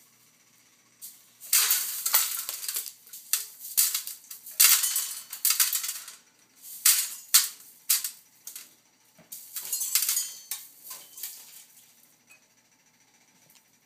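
Unpopped popcorn kernels skittering and rattling across a hard floor as a toddler's hands sweep and pat through them, in irregular bursts of crisp clatter that die away near the end.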